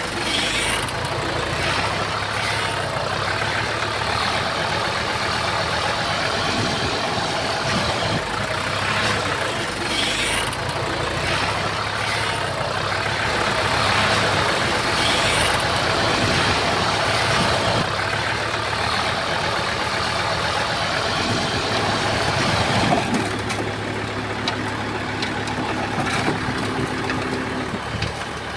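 Heavy diesel engine of a Komatsu bulldozer running steadily as the dozer works, with mechanical clatter over it. Its engine note shifts about twenty-three seconds in.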